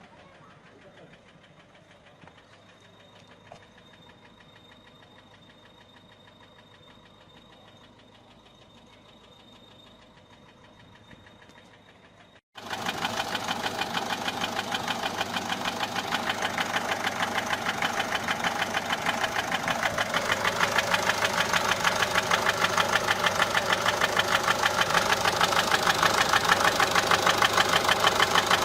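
Peugeot 407 1.6 HDi diesel engine running with a fast, regular ticking knock, faint at first and then, after an abrupt cut about halfway through, much louder. The mechanic suspects worn hydraulic tappets or camshaft more than the injectors.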